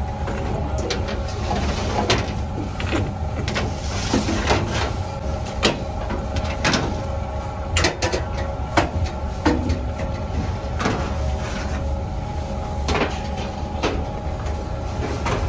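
Metal baking trays clanking and scraping against a deck oven's steel shelves as they are worked with a long peel: many sharp knocks at uneven intervals. Under them runs a steady machine hum.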